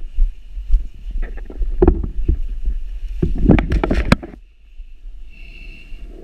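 Wind buffeting a helmet camera's microphone as a parachutist touches down on grass, with irregular thumps, scuffs and nylon rustling from the landing and the jumpsuit and canopy. The thumps and rustling are loudest about three to four seconds in, then die down.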